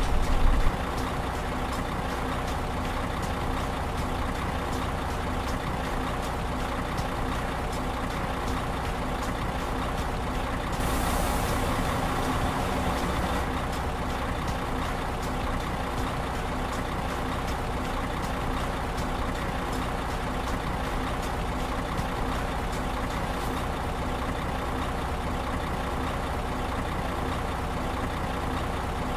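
A motor or engine running steadily, with faint regular ticking; it gets slightly louder about 11 seconds in.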